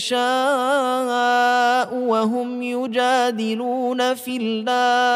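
A male reciter chanting the Quran in slow melodic tajweed style, holding long notes with small ornamental turns in pitch, broken by a few short stops between phrases.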